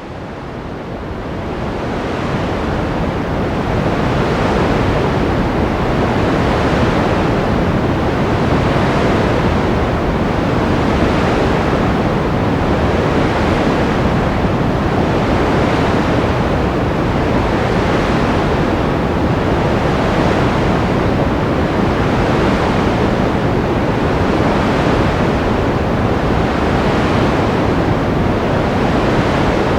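A white noise track for baby sleep, weighted toward the low end, fading in over the first few seconds and then holding steady. A soft swell in the upper hiss repeats about every two seconds.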